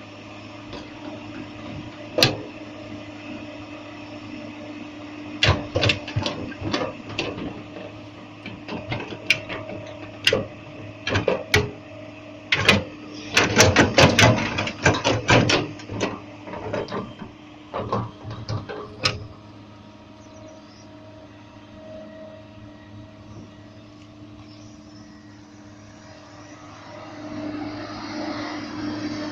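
Excavator engine running steadily with a hum, with a run of sharp metal knocks and clanks in the middle, thickest and loudest around the middle of the stretch. The engine grows louder again near the end.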